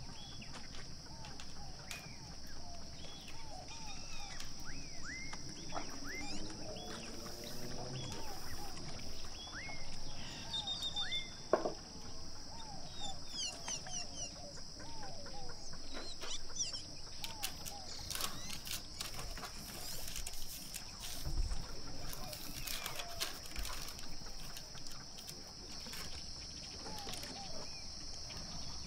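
Many small birds chirping in quick short calls over a steady high-pitched hiss, with a few soft clicks.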